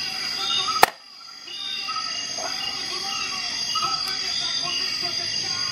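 Soft background music of short, held melodic notes, broken by a sharp click a little under a second in and a brief dip before the music resumes.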